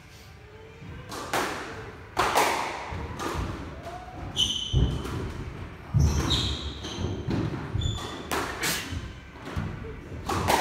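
Squash ball struck by rackets and hitting the court walls during a rally, a string of sharp thuds about every second, with a few short high squeaks of shoes on the wooden court floor near the middle.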